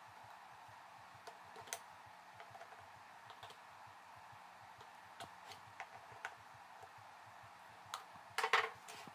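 Scattered light clicks and taps of an indicator screwdriver's metal probe and fingertips on the terminals and plastic case of a cordless tool battery pack, with a louder quick cluster of clicks near the end.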